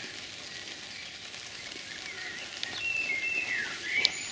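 Small birds chirping and whistling outside, a series of short gliding notes that grow busier in the second half, over a light steady hiss. A short sharp note or click stands out near the end.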